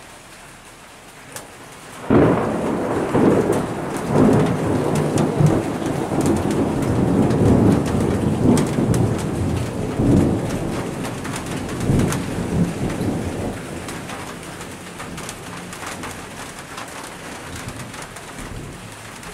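Thunder: a sudden loud clap about two seconds in turns into a long rolling rumble that swells again several times, then slowly dies away over the last several seconds.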